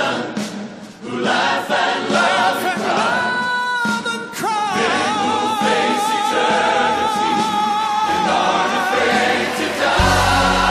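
Male gospel singers and a choir singing with accompaniment, holding a long sustained note that steps down in pitch partway through; a heavy low accompaniment swells in near the end.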